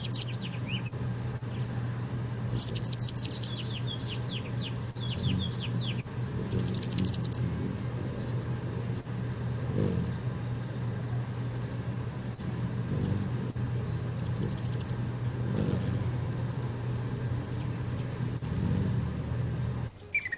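Hummingbirds chattering: several short bursts of rapid, high-pitched chips, with a string of quick falling squeaks a few seconds in. A steady low hum runs underneath.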